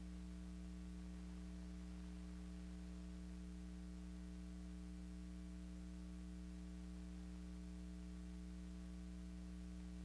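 Low, steady electrical mains hum over faint hiss, unchanging throughout.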